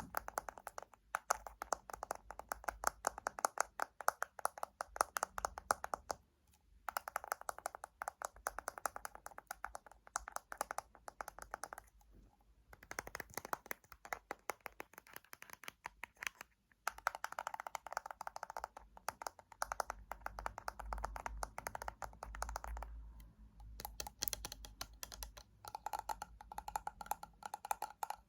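Fingernails tapping rapidly on a hard object, many taps a second, in runs of a few seconds separated by short pauses.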